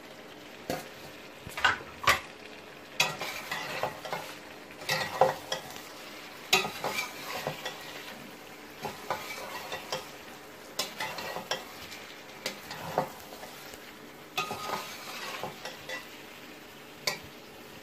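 Metal spatula stirring and scraping against a steel cooking pot, in irregular strokes and clinks, as green chillies are stirred into a chicken and okra curry. A low sizzle of the curry cooking runs underneath.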